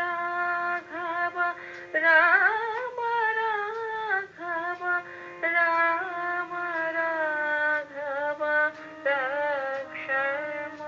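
A woman singing a slow Hindu devotional song: long held notes with a wavering vibrato and sliding turns between them, in phrases a second or two long with brief breaths between.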